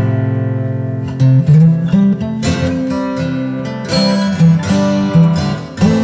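Background music on acoustic guitar: plucked and strummed chords, each ringing out and fading before the next.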